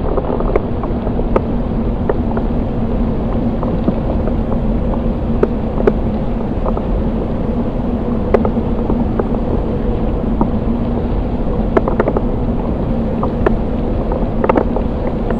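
Heavy waterfall pouring onto a rappeller and his helmet camera: a loud, steady rush of falling water with many small clicks of spray and drops striking the camera housing, over a faint steady hum.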